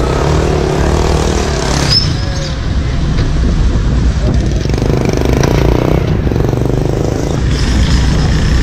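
Car driving slowly along a rough street: a steady rumble of engine and road noise.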